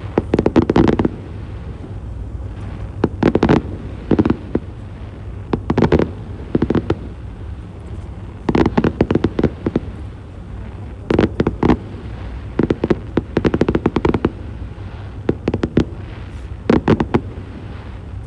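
Fireworks going off in repeated clusters of rapid crackling bangs, a new burst every second or two, over a steady low background rumble.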